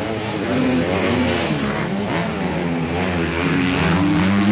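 Motocross bike engines revving, the pitch rising and falling again and again as the throttle opens and closes.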